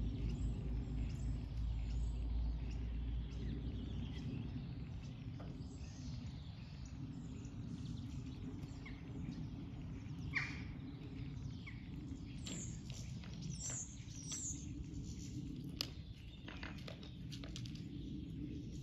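Small birds chirping here and there over steady outdoor background noise, with a short, louder falling call about ten seconds in and a quick run of high chirps soon after.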